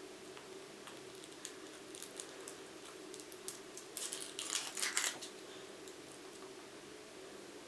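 Kinder Surprise egg being unwrapped by hand: its foil wrapper crinkling and crackling in short scattered bursts, densest about four to five seconds in, over a faint steady hum.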